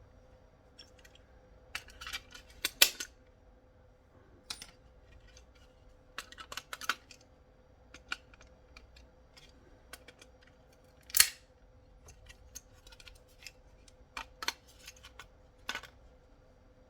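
Scattered clicks, taps and scrapes of a plastic radio-control handset and its small metal parts being taken apart by hand, with one louder scrape about eleven seconds in. A faint steady hum runs underneath.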